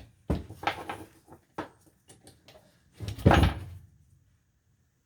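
A few short knocks and clatters of tools and the workpiece being handled on a workbench, the loudest a longer clatter a little past three seconds in.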